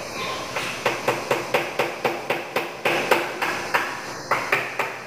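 Hammer striking in quick, even blows, about four a second, starting about half a second in, with a short pause about four seconds in.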